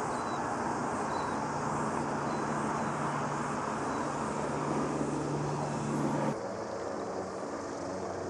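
Steady drone of aircraft engines flying over the fire. About six seconds in the sound cuts abruptly to a different, slightly quieter engine drone as a light fixed-wing plane passes overhead.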